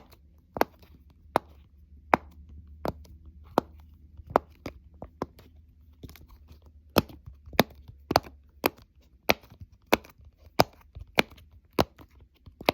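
Silicone pop-it fidget toy having its bubbles pressed one after another: a string of sharp pops, roughly one or two a second.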